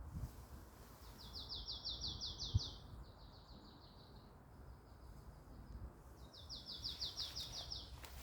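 A songbird singing twice, each song a quick run of about ten high down-slurred notes, the first trailing off into a thin, steady trill. Under it runs a low steady rumble, and there is a single sharp tap about two and a half seconds in.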